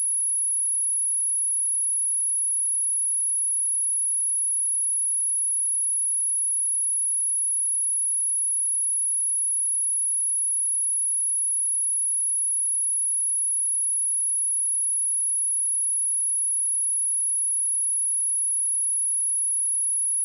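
A single steady, high-pitched 10511 Hz sine-wave test tone, held at one pitch and level, of the kind played to test speakers or shake dust and water out of them.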